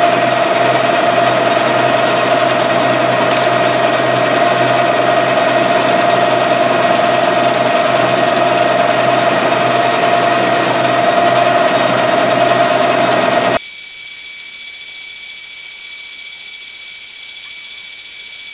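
Metal lathe running under a roughing cut along a metal shaft with a carbide insert, a steady machine noise with a constant tone and no chatter. About two-thirds of the way through the sound cuts off abruptly and gives way to a quieter, thin high-pitched whine.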